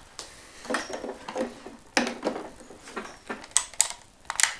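Clicks and plastic knocks of a hair dryer's mains plug being pulled from one AC socket of a BougeRV Fort 1000 portable power station and pushed into the other. About eight separate sharp taps, with no motor running.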